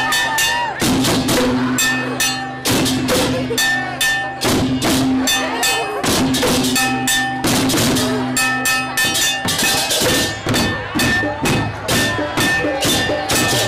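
Balinese tek-tekan music: wooden and bamboo clappers (okokan and tektekan) struck in a dense, fast rhythm together with gamelan drums and metal percussion, with held ringing tones coming and going underneath.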